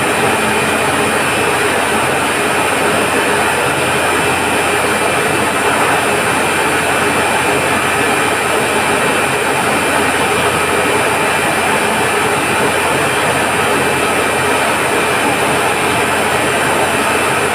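Steady, loud machinery noise of a reverse osmosis water treatment plant running: pumps and motors going without a break, with a constant high whine on top.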